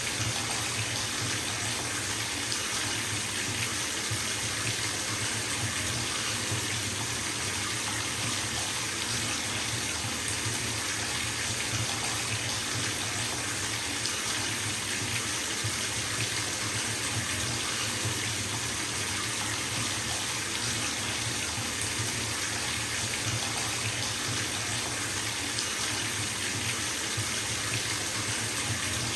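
Water running steadily from a bathtub tap into the filling tub, a constant even rush of splashing with no breaks.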